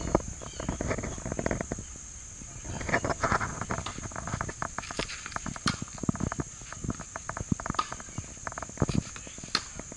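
Steady high-pitched drone of insects such as crickets, under irregular crackling, clicks and knocks close to the microphone.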